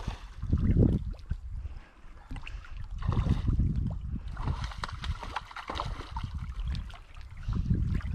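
Wind buffeting the camera microphone in gusts, with water lapping at a rocky lakeshore.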